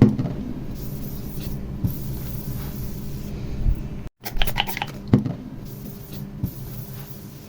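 Faint handling and rubbing noises as a sticker is pressed onto a tablet, over a steady low hum. The sound drops out for a moment about four seconds in.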